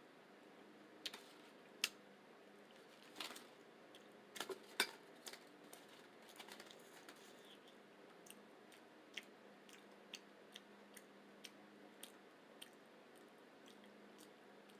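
Faint close-up chewing of a burrito: scattered wet mouth clicks and smacks. A few are louder in the first five seconds, then softer ones come about twice a second.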